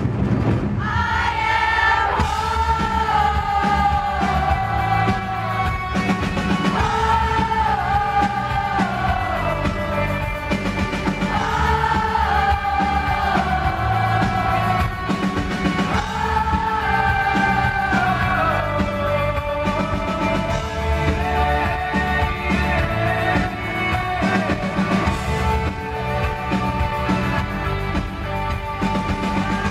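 Live rock band playing through a PA, with a male singer singing long, drawn-out phrases that slide down in pitch, over heavy drumming from a row of taiko drums and the band.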